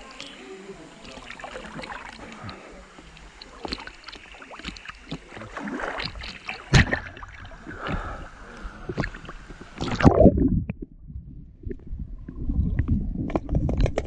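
Water lapping and splashing against a camera held at the surface of a pool, with sharp splashes about seven and ten seconds in. Then the camera goes under and the sound turns muffled and low: an underwater rumble with faint clicks.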